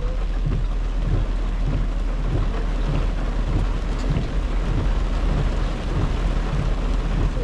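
Heavy rain pelting a car's windshield and roof, heard from inside the moving car over a steady low rumble from the car.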